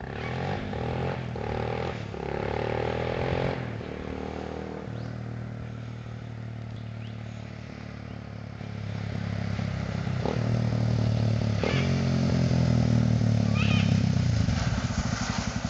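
Yamaha TTR250 single-cylinder four-stroke engine with a Pro Circuit slip-on exhaust, ridden toward the listener, its revs rising and dropping. It gets louder over the second half as it comes near.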